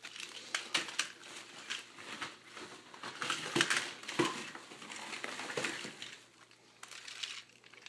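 Packaging rustling and crinkling while small hard toy train cars click and clatter as they are handled, in irregular bursts that die down about six seconds in.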